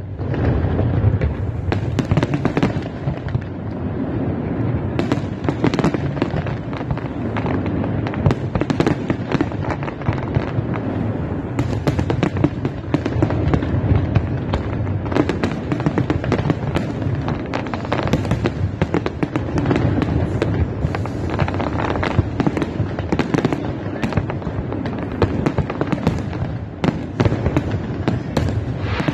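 Aerial fireworks display: a dense, continuous run of shell bursts and crackling, with a steady low rumble beneath.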